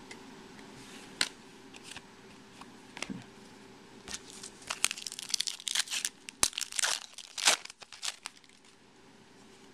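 Foil trading-card pack wrapper crinkling and tearing, with a few clicks of cards being handled. The crackling is densest and loudest from about four to eight seconds in.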